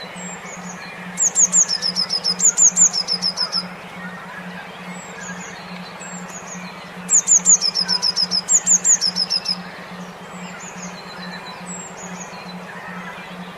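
A songbird singing two bursts of rapid, repeated high whistled notes that step down in pitch, each lasting about two and a half seconds, with fainter chirps in between. A steady, evenly pulsing low hum runs underneath.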